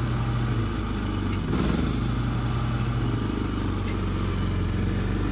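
Portable inverter generator engine running in eco mode, its hum stepping up and down a couple of times as the electric pressure washer's power draw changes, over a steady hiss.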